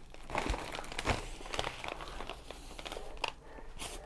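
Brown paper bag crinkling and rustling as it is handled and opened, a run of short, irregular crackles.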